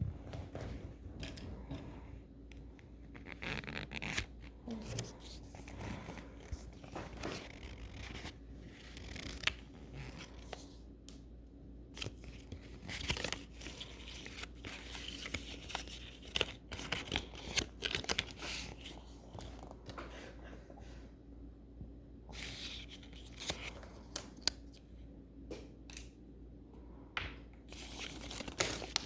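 Small plastic wrapper bags being torn open and crinkled by hand while the mini toys inside are unpacked, with irregular crackles and small clicks of handling throughout.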